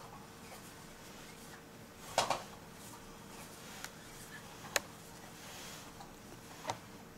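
Cat pawing at a battery-powered Cat's Meow toy: a few sharp taps and clicks, the loudest about two seconds in, over a faint steady hum.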